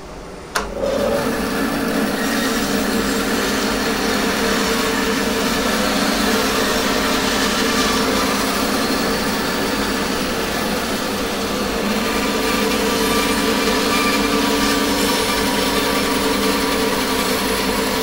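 Bandsaw cutting steadily through a block of red ironbark. The cut starts with a sharp click about half a second in, then runs as an even, unbroken sawing noise with a steady hum under it.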